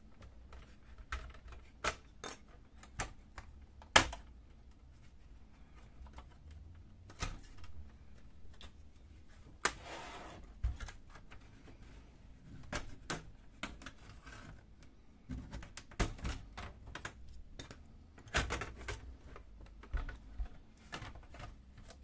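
Plastic snap clips on a laptop's palmrest cover clicking and snapping loose as it is pried off with a plastic pry tool. The clicks come irregularly, the sharpest about four seconds in, with small clusters of clicks later on.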